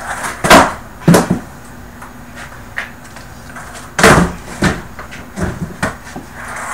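Skateboard on carpet: the board clacks and slaps down loudly twice, about half a second and a second in, as tricks are landed. Another loud landing comes about four seconds in, followed by a few lighter knocks of the board.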